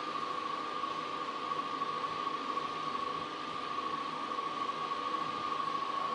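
Steady background hiss with a constant high whine running through it: room tone, with no other sound.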